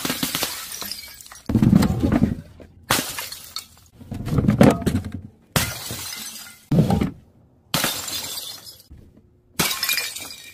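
About six separate crashes, one after another, as objects dropped from a height hit paving tiles and break apart. Each is a sharp smash with a shattering, clattering tail that dies away within a second or so.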